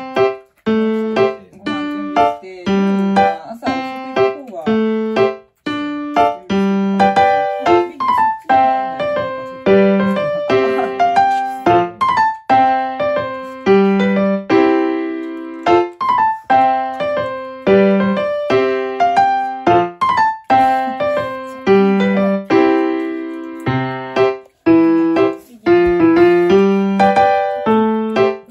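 Background piano music: a gentle melody of struck, fading notes over a steady lower line.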